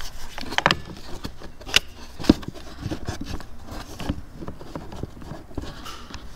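Scattered sharp metal clicks and knocks from locking pliers and multimeter test-lead clips being handled and clamped at a car battery's negative terminal. The loudest click comes a little over two seconds in.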